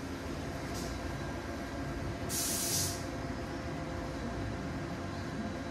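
Steady workshop background hum, with a short burst of hiss lasting about half a second, a little past the middle.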